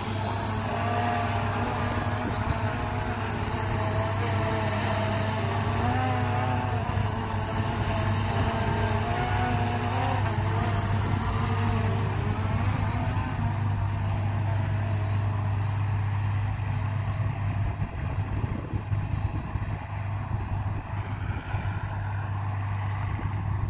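Diesel engine of harvest machinery working in a barley field, running steadily with a low hum and a slightly wavering pitch, a little fainter near the end.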